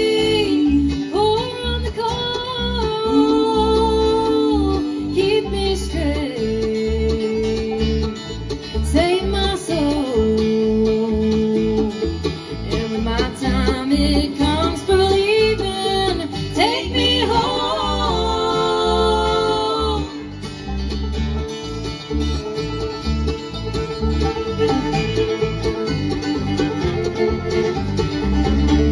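Bluegrass band playing an instrumental break: a fiddle carries a lead line with sliding notes over banjo rolls, acoustic guitar strumming and bass. The sliding lead thins out about twenty seconds in while the banjo and rhythm keep going.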